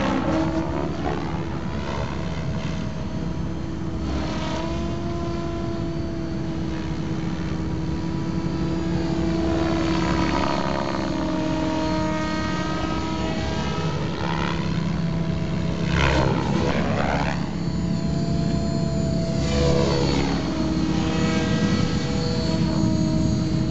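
Compass 7HV electric RC helicopter with a Scorpion motor and 690 mm blades in flight. Its motor and gear whine runs steadily over the rotor blade noise, shifting in pitch and swelling each time it sweeps past, several times over.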